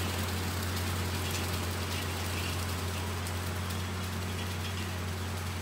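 Farmall 1066 tractor running steadily as it pulls a rotary mower, a low steady drone that slowly fades as the tractor moves away.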